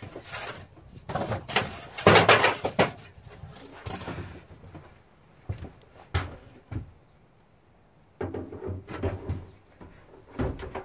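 Clatter and knocks of a Smev 9222 stainless-steel hob-and-sink combination unit being picked up, carried and lowered into the cutout in a laminate worktop, with a loud clatter about two seconds in and a run of knocks near the end as it is set into the hole.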